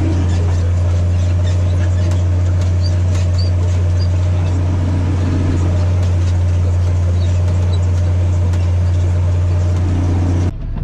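Massey Ferguson 8210 tractor engine running at a steady pitch under load while pulling a disc harrow through a field, a constant low drone. The sound breaks off abruptly near the end.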